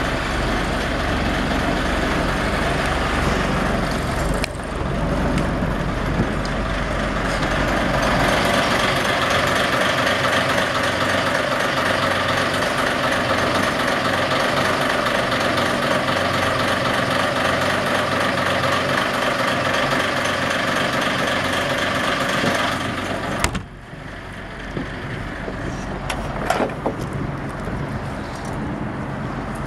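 Yanmar inboard marine diesel engine idling steadily, heard loud and close. About three quarters of the way through the sound drops suddenly to a quieter, more distant running, with a few sharp knocks a little later.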